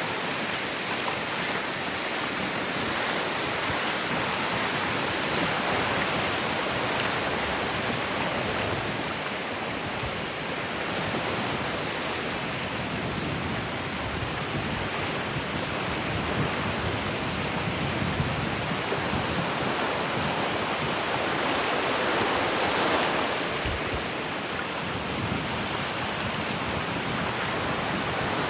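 Ocean waves washing onto a beach, a steady rushing surf that swells a little about three-quarters of the way through.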